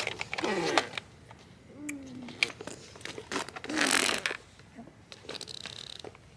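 Short bursts of a person's voice, several in a row, each with a breathy hiss, with a few light clicks between them.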